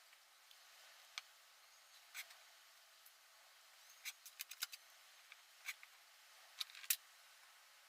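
Scattered light clicks and taps over a faint steady hiss: a few single clicks, a quick run of five or six around the middle, and the sharpest two near the end.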